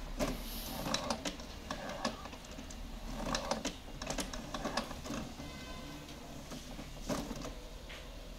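HP Officejet Pro 8100 inkjet printer printing a test page: its mechanism whirs and clicks in three spells, near the start, in the middle and near the end, with quieter gaps between.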